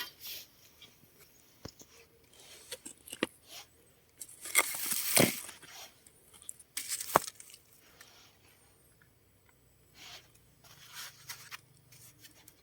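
Hand digging in hard, rocky ground: a digging tool scraping and crunching into soil and stones in irregular strokes. A louder crunching stretch comes about halfway through, followed by a sharp knock.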